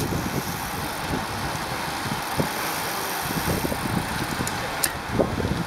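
Wind rush on the microphone and road rumble from a road bicycle rolling along in a group of riders, with a couple of sharp clicks near the end.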